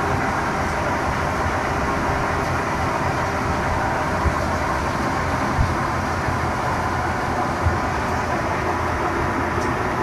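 Stationary grain threshing machine (patoz) running steadily at work, a constant loud mechanical noise with a few short low thumps.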